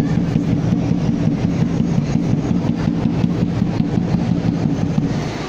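An engine-like motor running steadily with a fast, even pulse, dropping away shortly before the end.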